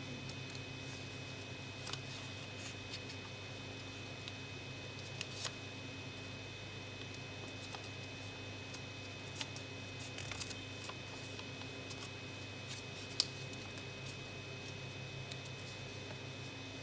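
A sheet of origami paper handled and creased between the fingers, rustling softly, with scattered small crinkles and snaps of the paper, the sharpest a little past halfway. A steady electrical hum runs beneath.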